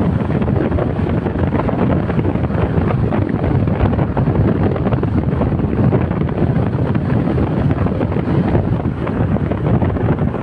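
Steady rush of wind buffeting the microphone at the side window of a moving car, with road noise underneath.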